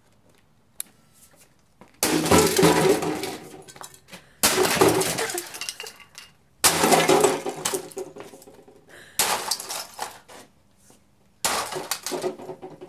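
Sledgehammer smashing a plastic Keurig 2.0 coffee maker on concrete. Five heavy blows about two and a half seconds apart, each followed by a crash of breaking plastic and clattering pieces.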